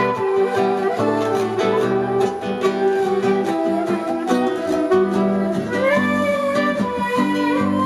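Music with a plucked-string rhythm under a held melody line that slides between notes.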